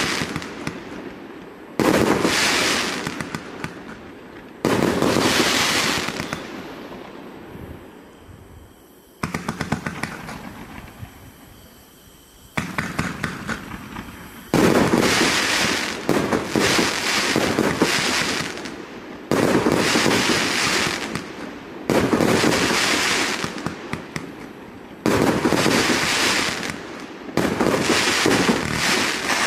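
A 188-shot fireworks cake firing: loud bursts every two to five seconds, each trailing off in crackling. About nine seconds in there is a run of rapid crackling pops, then a short lull before the bursts resume.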